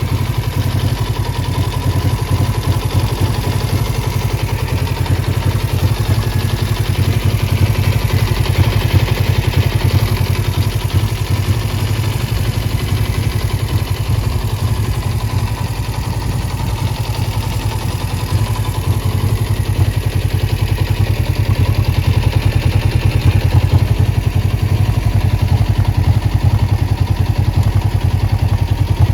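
Suzuki GSX400E's 399 cc engine running steadily with a clattery edge, the bottom-end (crankcase) noise that the seller reports and says needs repair.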